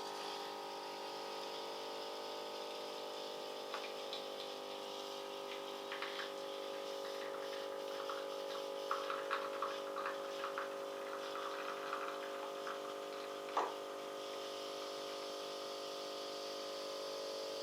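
Krups XP 3440 espresso machine's pump humming steadily while liquid runs through. Irregular small spits and crackles of the flow come in the middle, with one sharper click near the end.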